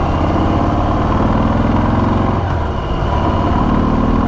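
Harley-Davidson Sport Glide's Milwaukee-Eight 107 V-twin running through its stock exhaust. The note swells twice, with a brief dip between.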